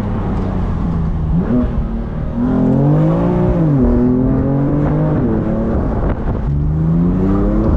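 Stage 1 tuned BMW M4's twin-turbo straight-six accelerating hard, heard from the open-top cabin. Its note climbs and falls several times as it pulls through the revs, then climbs again near the end.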